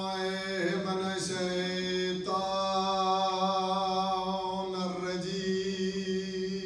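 Devotional chanting at a Muharram majlis in long, drawn-out notes over a steady low drone. The melody shifts to a new note three times.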